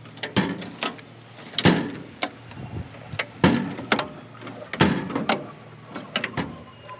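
Drawers of a vintage Snap-On metal rolling toolbox being slid open and shut, giving a run of sharp metal clacks and short sliding rattles, about one a second.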